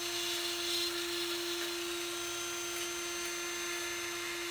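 Flex-shaft Dremel rotary tool running at a steady speed, giving one even whine. Its fine diamond-tipped bit is grinding the grime from around a pan rivet, here an aluminium one.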